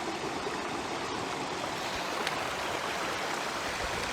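Steady rush of water from a small mountain waterfall and stream.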